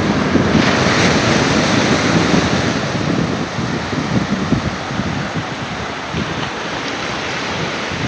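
Mediterranean surf breaking and washing up a sandy beach, a steady hiss of foam that is loudest in the first few seconds, with strong wind buffeting the phone's microphone in a low rumble.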